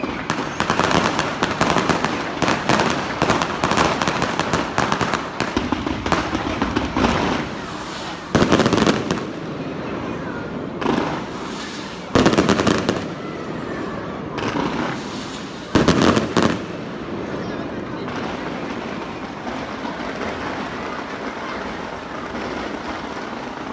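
Aerial fireworks bursting, with a dense run of crackling bangs for the first several seconds. Then come three loud separate bursts at about 8, 12 and 16 seconds in, and the sound settles to a lower steady rumble of crackle near the end.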